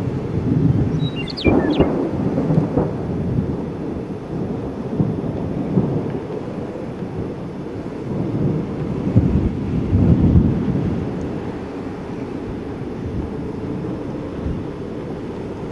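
Low thunder rumble and gusting storm wind, swelling about a second and a half in and again around nine to ten seconds in. A few short, high bird chirps come near the start.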